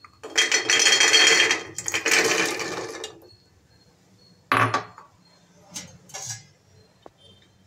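Soaked chickpeas poured from a glass bowl into an empty aluminium pressure cooker, rattling onto the metal bottom for about three seconds. A single knock follows about a second later, then a couple of faint clatters.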